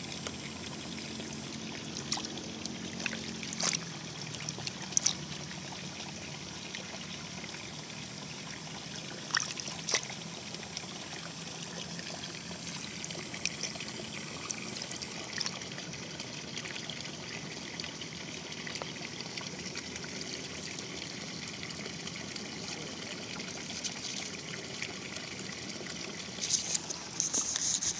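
Water trickling steadily in a small rice-paddy irrigation ditch. A few soft clicks and rustles come through, with a cluster near the end, and a faint high steady whine stops about halfway through.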